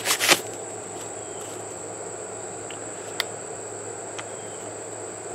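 Insects droning in one steady, high-pitched tone. A few short clicks come in the first half-second, and single faint clicks come about three and four seconds in.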